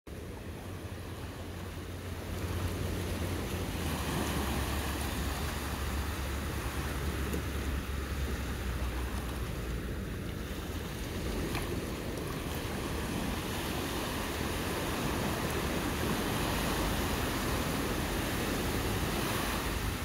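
Small ocean surf breaking and washing up over a flat sandy beach: a steady rushing wash that swells about two seconds in and again near the end.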